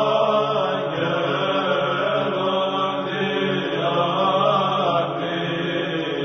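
Slow choral chant: voices holding long, sustained notes that move gently in pitch, at an even level.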